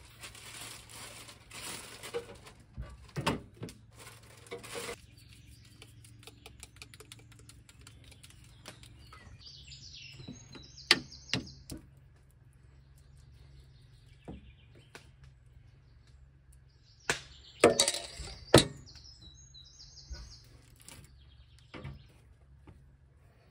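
A plastic bag crinkling as marinated deer meat is taken out of it, then taps and clicks of the meat and a spoon against a metal baking tray as the marinade is spread, loudest about eleven seconds in and again near the end. A bird chirps twice in the background.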